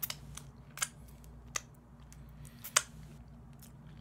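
Mouth noises of chewing barbecued chicken: a few sharp, wet clicks and lip smacks, the loudest about three seconds in, over a low steady hum.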